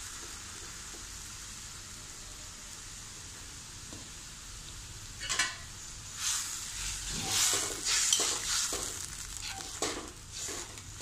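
Tamarind-water gravy simmering in a kadai with a steady high sizzle. From about five seconds in, a spoon stirs and scrapes through it in a run of uneven strokes, mixing in turmeric powder.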